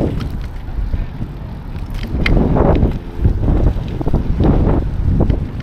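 Wind buffeting the microphone of a camera riding on a moving bicycle, in uneven gusts, over the rolling noise of tyres on a gravel path, with a sharp click about two seconds in.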